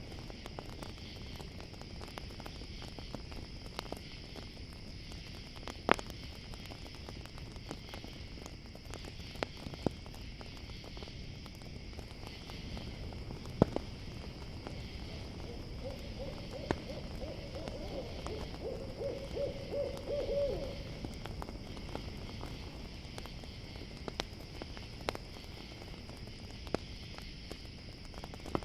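Campfire crackling with scattered sharp pops over a steady chirring of crickets. About two-thirds of the way through, an owl hoots in a run of rapid, wavering notes.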